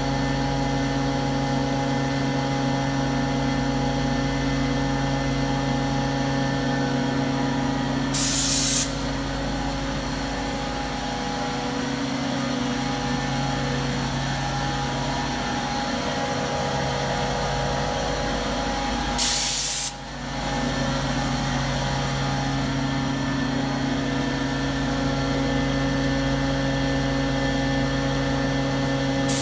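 Grassair S35 11 kW rotary screw air compressor running with a steady hum. It is broken twice by a short burst of hissing air, each under a second long, about eleven seconds apart.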